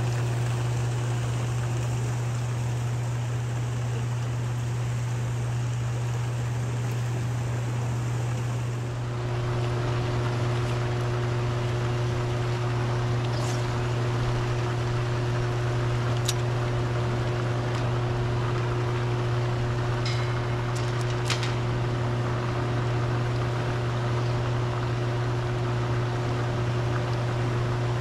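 Steady rushing of churning water in a dam's tailrace, with a constant low hum underneath.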